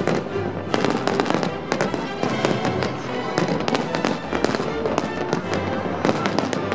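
New Year's fireworks display going off in rapid, irregular bangs and crackles, with music playing underneath.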